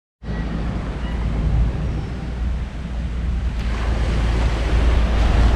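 Steady wind noise on the microphone: a low rumble with a hiss over it.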